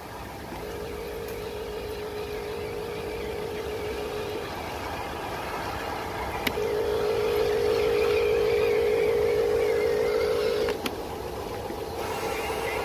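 RC dump truck's motor and gearbox whining steadily as it drives. The whine comes in two stretches, the second louder, with a sharp click between them.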